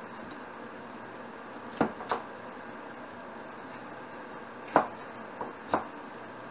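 Kitchen knife chopping a green pepper on a wooden cutting board: two quick knocks about two seconds in, then two more with a fainter tap between them about three seconds later, over a steady background hiss.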